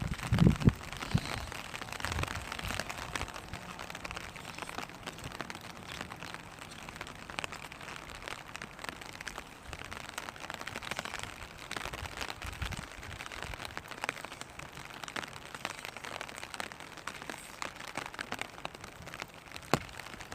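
Raindrops falling on a clear vinyl umbrella: a steady patter of many small drops ticking on the plastic, with a few heavier low thumps in the first second.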